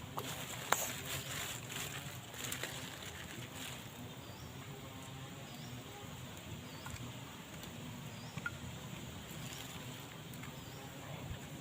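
Outdoor ambience: a small bird chirps a short call every second or so, over a steady background hiss, with scattered light knocks and clicks in the first few seconds.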